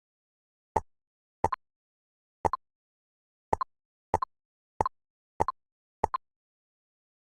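Digital jigsaw puzzle game sound effects: eight short plop-like clicks, most of them quick double clicks, about every half second to second, as pieces are picked up and dropped into place.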